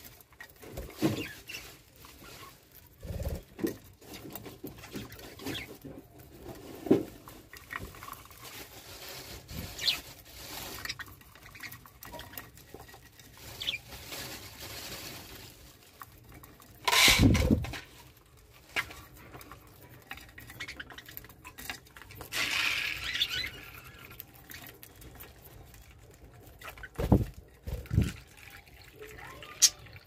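Budgerigars in an aviary: scattered short chirps and a brief burst of chatter, among light clicks and wing flutters, with a louder rush of sound about halfway through.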